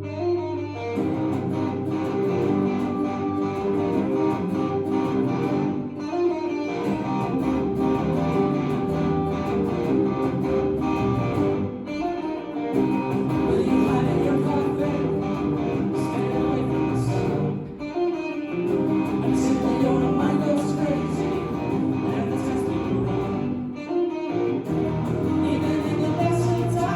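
Live band playing an instrumental passage led by guitar, with brief dips in the sound about every six seconds.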